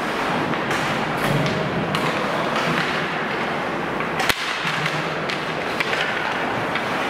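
Ice hockey in play: skates scraping the ice and sticks clicking against the puck and each other, with one sharp crack about four seconds in.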